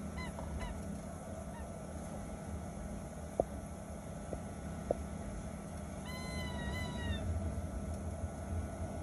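Cabin of a Boeing 737-900 taxiing: steady low rumble of the CFM56 engines and the rolling airframe. A few short high squeaks come near the start, a few light ticks in the middle, and a longer wavering squeal about six seconds in.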